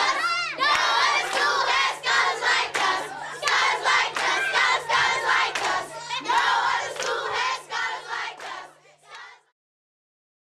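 A large group of children's voices chanting and shouting together in a quick, even rhythm, fading out about nine seconds in.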